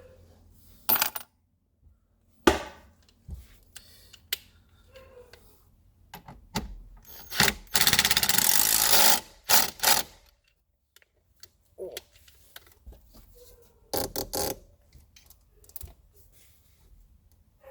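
Hand work on a car seat belt buckle: metal parts and tools clicking, clinking and knocking. About seven seconds in, a cordless drill runs for about two seconds.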